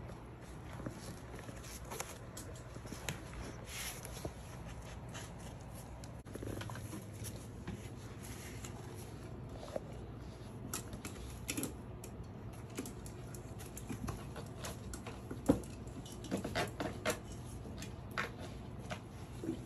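Puppies' paws and claws pattering and clicking on a tile floor as they scuffle and play, with scattered light taps and knocks that come thicker near the end, and one sharper knock about three-quarters of the way through.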